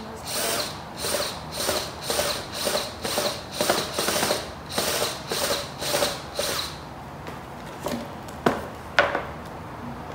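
Cordless drill boring a hole through a pine board, run in short even pulses about two a second. It stops, and there are two sharp knocks near the end.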